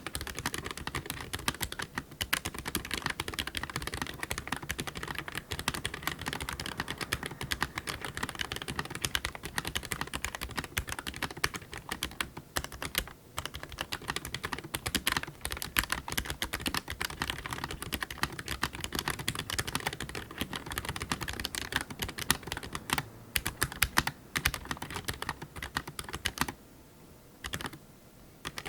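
Fast, continuous typing on an Eweadn MK100 mechanical keyboard with white switches: a dense run of key clicks, broken by two brief pauses near the end.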